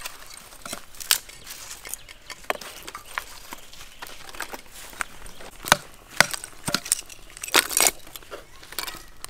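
Twigs and lumps of charcoal being handled and laid into a clay bucket stove: scattered snaps, knocks and light clinks, with a cluster of louder ones late on.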